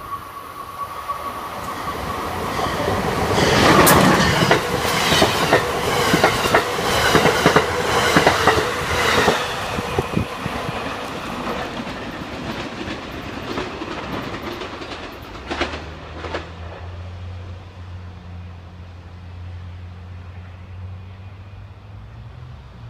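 Amtrak AEM7DC electric locomotive and its Amfleet coaches passing at speed. The rush of the train swells to a peak about four seconds in, with wheels clacking rapidly over the rail joints, then fades as the train recedes. A low steady hum remains over the last several seconds.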